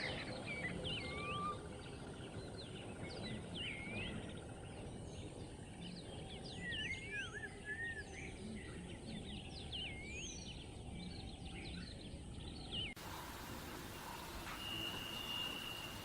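Birds chirping, many quick rising and falling calls over a steady low background rumble. About thirteen seconds in, the sound cuts abruptly to a hissy background with a brief steady high tone.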